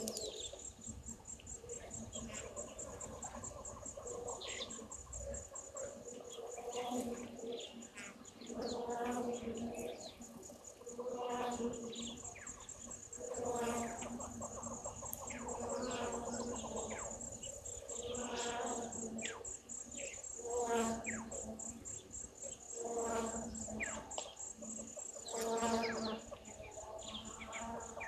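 A steady, rapidly pulsing high insect trill that stops a couple of seconds before the end. Beneath it, lower animal calls repeat about every two seconds, with a few brief falling whistles.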